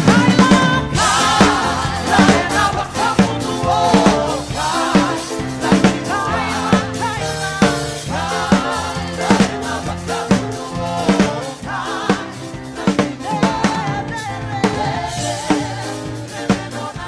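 Live worship band playing, with a steady drum-kit beat under singing voices.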